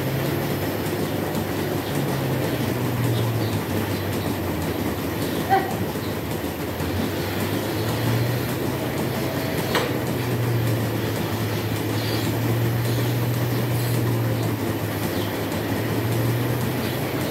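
Dairy milking plant running steadily: a continuous mechanical rumble with a low hum that swells and fades, and a couple of brief clanks about a third and halfway through.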